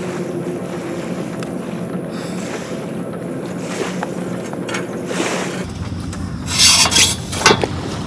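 Shoes scraping and scuffing on a concrete seawall as someone climbs up onto it. A few loud scrapes come close together about seven seconds in, over a steady low drone and wind.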